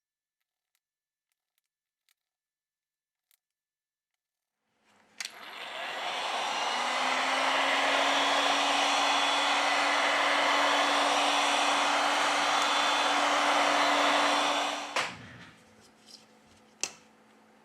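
A small electric blower motor starts about five seconds in with a click, spins up with a slight rise in pitch, then blows steadily for about ten seconds before switching off. It sounds like a hair dryer or heat gun, of the kind used to set the back-cover adhesive. A few light clicks and knocks come before and after it.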